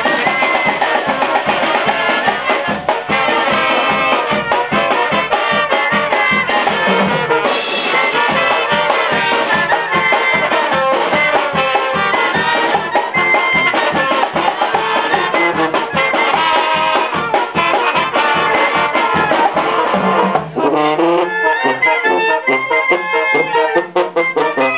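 Mexican banda brass band playing live: trumpets, trombones and sousaphone over a steady beat from snare drums, congas and bass drum. Near the end the bass drum drops out and the brass and sousaphone carry on.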